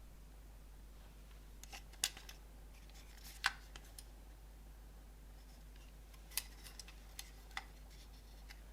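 Plastic cassette tape and case being handled: two short runs of sharp clicks and taps, a few seconds apart.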